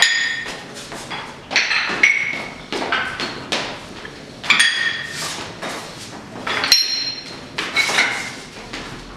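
Boot heels stepping on loose tuned floor tiles: about a dozen irregular knocks, each setting a tile ringing with a short, bright pitched tone that dies away within a second.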